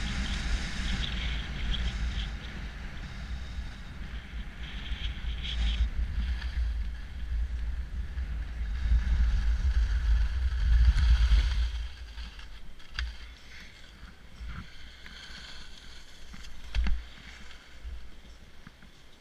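Wind rushing over a GoPro's microphone and skis hissing over packed snow on a downhill run, dropping away about twelve seconds in as the skier slows to a stop. After that, quieter, with a few light knocks of skis or poles.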